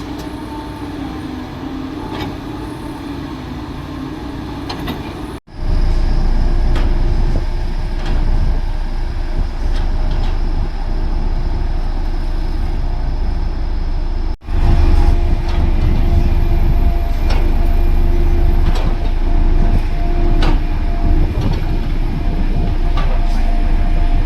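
Heavy construction machinery running: a steady, heavy engine rumble with scattered clanks and ticks. It drops out abruptly twice and comes back much louder after the first break.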